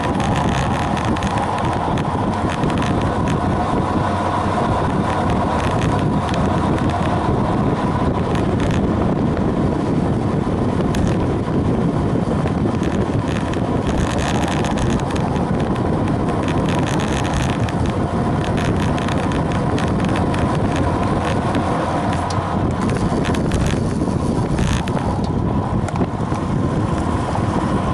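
Wind rushing over the microphone of a camera on a road bike moving at speed, with tyre noise from the road surface and a steady hum underneath.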